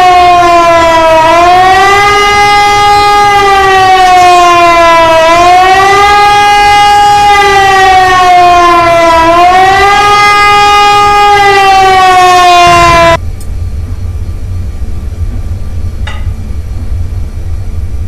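A loud, siren-like wailing tone that rises quickly and then falls slowly, repeating about every four seconds, and cuts off suddenly about 13 seconds in. A steady low rumble follows.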